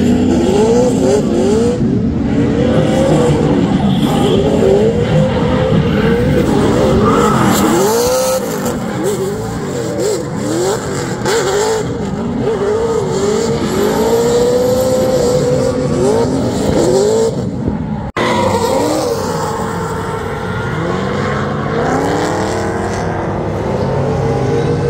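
A drift car's engine revving up and down over and over, about once a second, with tyres squealing as the car slides.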